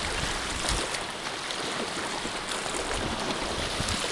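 Small sea waves washing over shoreline rocks, a steady splashing hiss of water.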